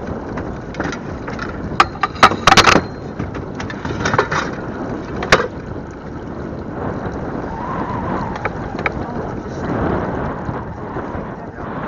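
Wind rushing over the microphone on a pontoon boat in gusty wind, with a quick cluster of sharp knocks and clatters about two seconds in and another single knock a few seconds later.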